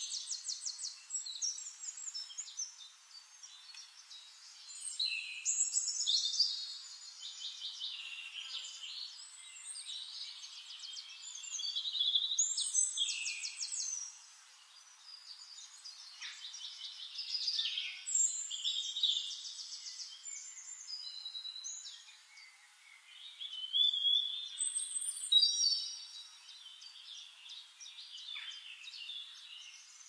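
Outdoor birdsong: high chirps and fast rattling trills arriving in clusters that come and go, with quieter gaps between them.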